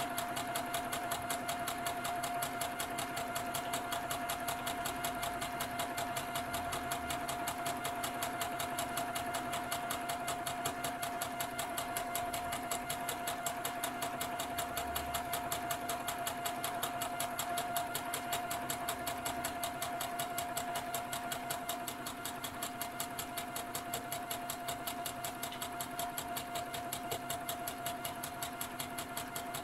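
Electric sewing machine running steadily at speed, stitching a long straight seam through tulle netting: a continuous motor hum with a fast, even needle beat.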